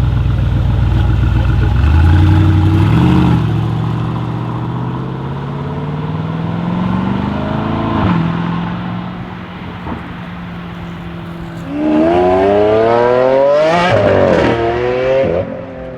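Mercedes-AMG G63's twin-turbo V8 through an Akrapovic exhaust accelerating: a low rumble, a short rev about two seconds in, a slow climb in pitch, then from about twelve seconds a loud, hard pull with the pitch rising steeply and dropping back several times before it fades near the end.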